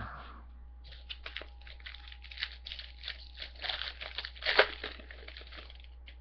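Crinkly foil trading-card pack wrapper being handled and torn open, a run of rapid crackles for several seconds with the loudest tear near the end.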